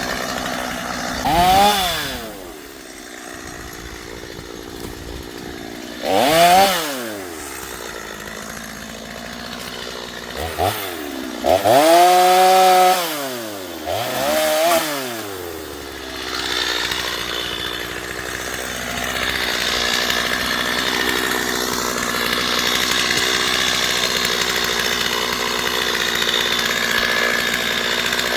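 Chainsaw revved up and let back down four times, each rev rising and falling in pitch, the longest and loudest around the middle; through the second half it runs steadily.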